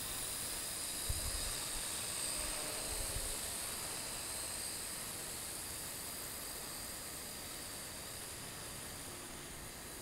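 Ares Ethos QX130 micro quadcopter's motors whining high overhead, a steady high-pitched buzz that slowly grows fainter. Brief low wind rumbles hit the microphone about one and three seconds in.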